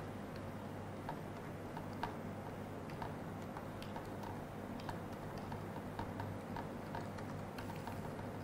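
Laptop keyboard keys tapped one at a time at a slow, fairly even pace, about two a second in places, over a low steady hum.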